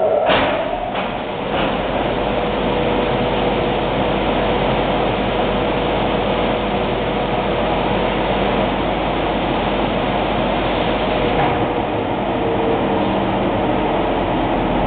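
Glass cutting and loading table in operation: a steady mechanical running noise with a faint steady hum, after a sharp knock right at the start.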